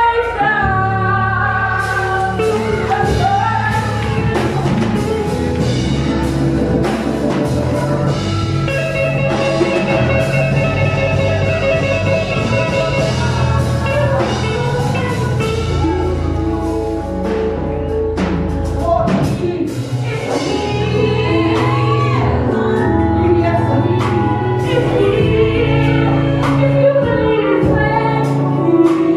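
A woman singing a gospel song into a microphone, backed by a band with drum kit and low bass accompaniment.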